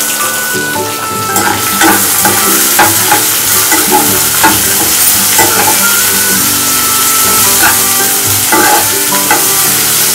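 Sliced onions, green chillies and curry leaves sizzling in hot oil in a nonstick kadai. From about a second and a half in, a slotted spatula scrapes and taps against the pan as they are stirred.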